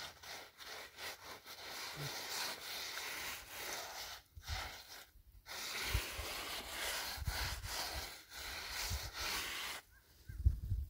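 Gloved hands rubbing and scraping over a gritty cement-and-gravel mix, smoothing it with repeated scratchy strokes and brief pauses about four and five seconds in and near the end.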